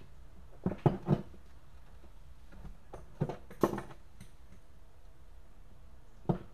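Short metal clinks and knocks of adjustable wrenches on steel hydraulic hose fittings and against a wooden workbench as the fittings are tightened. The knocks come in small groups: three about a second in, a few around three to three and a half seconds, and one near the end.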